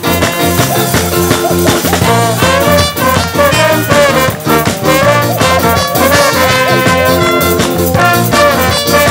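Live brass band of trumpets, trombones, saxophones and sousaphone, backed by electric guitar, bass guitar and drum kit, playing an upbeat number with a steady beat. A trumpet plays out front over the band.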